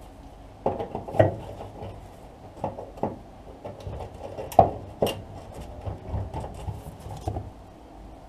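Hand tools and metal parts being handled during rear-axle removal: scattered irregular clicks and knocks, the loudest a little past four and a half seconds in.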